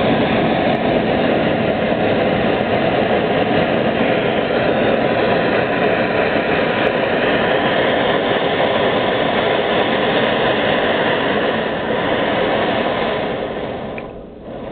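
Small camping-stove gas burner flame giving a steady rushing noise, which drops sharply near the end as its valve is turned down.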